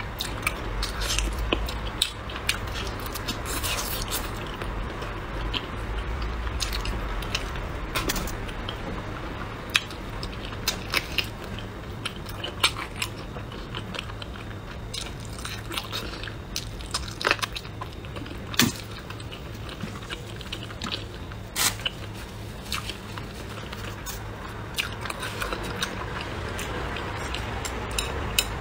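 Close-miked mouth sounds of a person chewing braised pig trotter, with irregular sharp smacks and clicks, a few louder than the rest, over a faint steady low hum.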